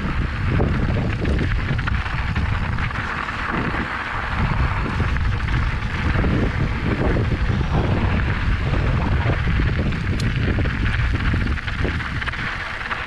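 Wind rushing over the camera microphone as a mountain bike descends at speed, with the knobby tyres rolling over loose dirt and rock and frequent short knocks and rattles from the bike over the bumps.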